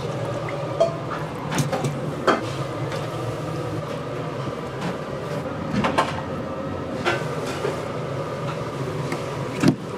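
Metal tongs clanking against a stainless steel stockpot and mesh colander as chunks of braised beef are lifted out, a handful of short clanks scattered over a steady kitchen hum, the loudest near the end.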